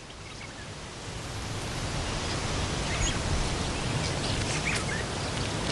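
Outdoor field ambience in dry bush: a steady hiss with a low rumble that swells over the first two seconds, and a few faint high chirps.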